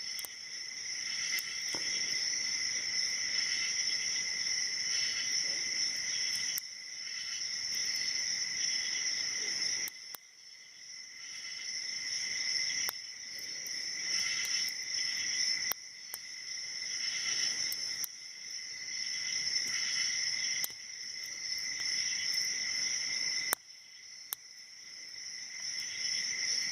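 Crickets or other night insects trilling steadily in two high pitches. The sound drops away suddenly several times and builds back up over a few seconds.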